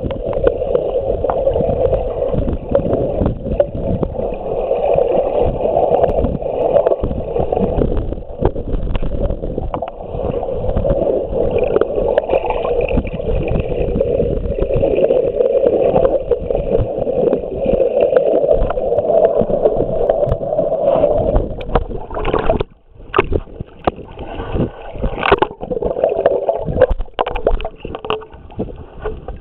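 Water churned by a swimmer's kicks and strokes, heard with the microphone underwater: a loud, muffled rushing and bubbling with frequent knocks. It drops out briefly about three quarters through, then goes on as scattered sharp knocks and splashes.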